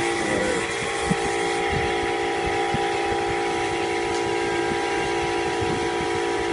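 Small portable electric air compressor running steadily: a constant motor hum with a hiss over it.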